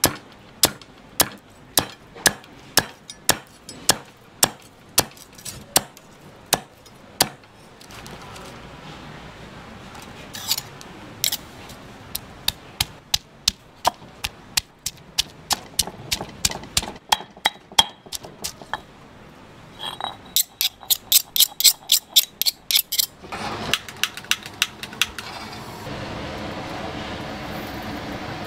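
Knife chopping pork on a cutting board: sharp knocks about twice a second, then irregular runs of chops and a fast burst a little past two-thirds of the way through. A steady hiss takes over near the end.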